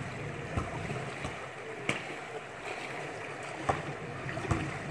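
Pool water splashing and churning as a dolphin tows two swimmers through it, with a few sharp clicks scattered through it.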